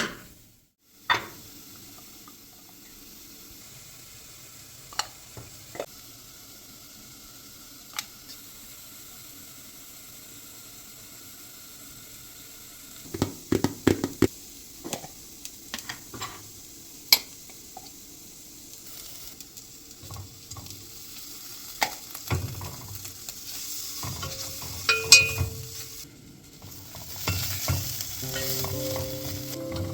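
Food frying in a pan: a steady sizzle with scattered clicks and scrapes of a utensil stirring against the pan. The sizzle grows louder near the end.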